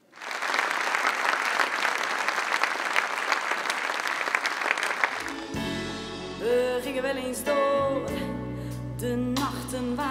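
Audience applauding, starting suddenly and continuing for about five seconds. Then a song with singing starts.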